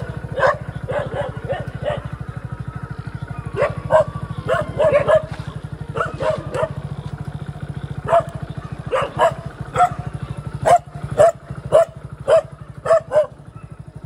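A pack of stray dogs barking, short sharp barks from several dogs in irregular bouts that grow denser and louder in the second half, over a steady low hum.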